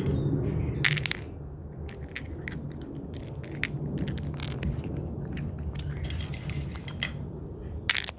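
A cat eating close to the microphone: a run of sharp, irregular crunches and clicks, typical of a cat chewing dry food, over a steady low rumble.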